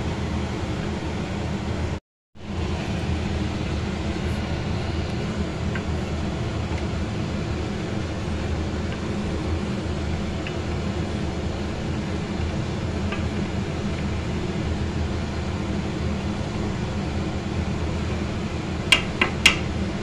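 Steady fan-like hum and hiss that drops out for a moment about two seconds in. Near the end there are two sharp knocks half a second apart, a spatula striking the rim of an aluminium pot.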